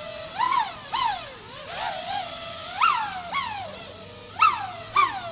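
The brushless motors and propellers of a 6S FPV quadcopter (iFlight XING 2207 1800kv) are whining. The pitch jumps up sharply and falls back about eight times as the quad yaws and corrects. The pilot reads these surges as yaw 'hop' after lowering the yaw P gain, though he allows that it may be his own stick input.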